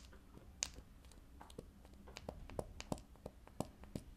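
Plastic dome of a large googly eye clicking as a thumb presses and pops it again and again. The small sharp clicks come irregularly, about three a second, with the loudest about half a second in.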